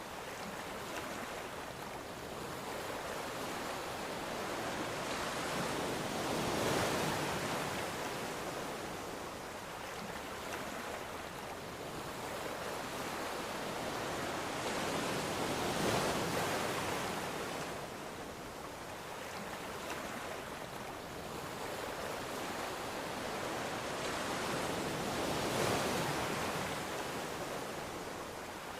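Ocean waves breaking and washing ashore, a steady surf noise that swells to a peak roughly every nine seconds, three times, and ebbs between.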